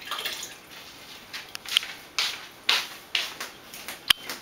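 Kitchen tap running into a measuring cup, then several short noisy rushes of pouring and handling, with a sharp clink near the end.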